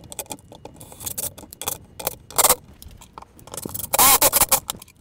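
Cordless drill driving wood screws into a pine cleat in several short bursts, the motor whining as each screw bites into the wood; the longest, loudest burst comes about four seconds in.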